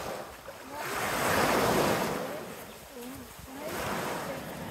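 Small waves washing onto a sandy beach, the surf swelling and fading twice.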